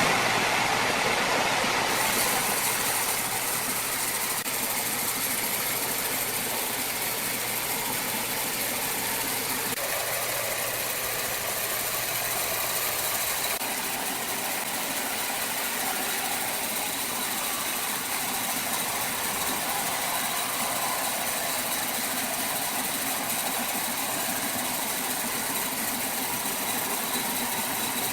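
Large wood saw running steadily on a jackfruit log, a continuous loud mechanical noise; a low hum under it drops out about halfway through.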